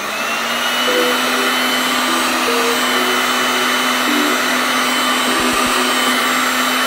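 Electric heat gun blowing hot air, its fan motor's whine rising as it spins up at the start and then holding steady over a rushing hiss of air. It is heating the old sealant in a headlight housing's seam to soften it for scraping out.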